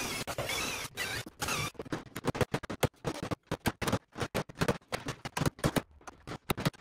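Electric drill boring out a spot weld in a rusty sheet-steel Dacia body panel, stopping about a second and a half in. Then a fast, uneven run of hammer blows on a chisel driven between the panel's spot-welded layers to split them apart.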